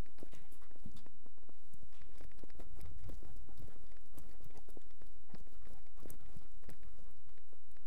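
Search-and-rescue dog moving about, heard through a microphone worn on its body: irregular paw steps, knocks and rubbing of the wearable, over a constant low rumble. No barking.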